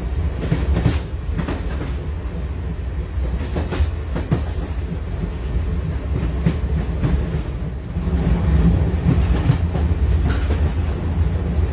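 A train rolling along track: a steady low rumble with irregular knocks and clanks of wheels and cars, growing louder about two-thirds of the way through.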